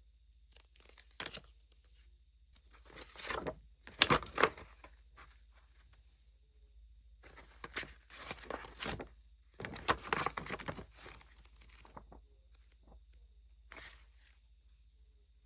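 Packaging being torn open and crinkled by hand in several bursts, loudest about four seconds in and again about ten seconds in.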